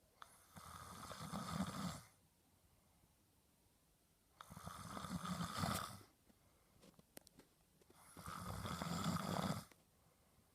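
A man snoring in his sleep: three long snores about four seconds apart, each growing louder before it breaks off.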